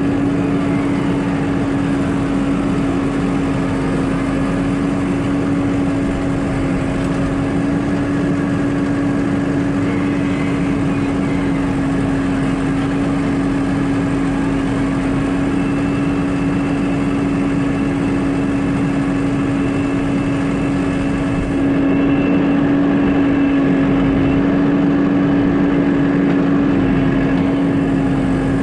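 Tractor engine running steadily at a constant pitch while the tractor drives with a round bale on its front loader. It gets a little louder about three-quarters of the way through.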